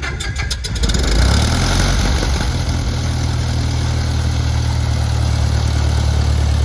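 Cessna 172's piston engine and propeller just after start: quick regular firing pulses as it catches in the first second, then running steadily at idle with a slight pick-up about a second in.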